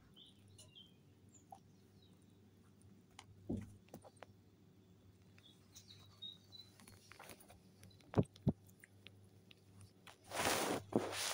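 Baby Mini Lop rabbits pushing against a phone held close: scattered soft taps, two sharp knocks in quick succession a little past halfway, and near the end a loud rustling as fur rubs over the microphone. A few faint high chirps at the start and in the middle.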